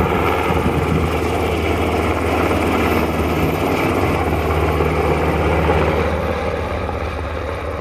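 Black Hawk helicopters flying overhead: steady rotor and turbine noise with a low hum, easing slightly toward the end.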